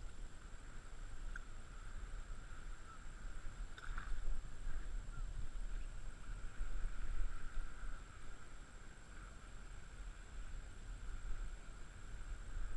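Small waves lapping and sloshing around a wading angler, with a low, gusty rumble of wind on a head-mounted action-camera microphone. There is a short louder noise about four seconds in.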